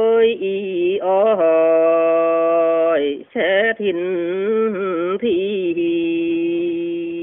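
A man singing a Dao Tuyển folk song solo in a chant-like style, holding long, wavering notes, with a short break for breath a little past three seconds in.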